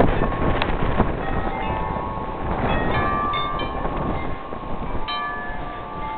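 Wind buffeting the microphone in a low rumble, with several clear ringing notes sounding over it from about a second in and more joining around three seconds in.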